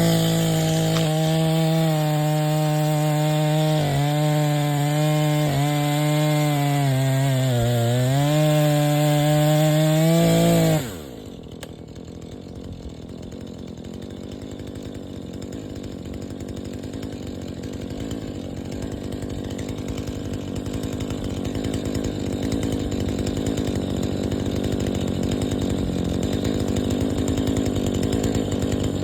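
Chainsaw running at full throttle through a felling cut, its pitch dipping under load around eight seconds in. About eleven seconds in the throttle is released and the engine note falls away sharply, leaving a quieter, rougher low running sound that slowly grows louder.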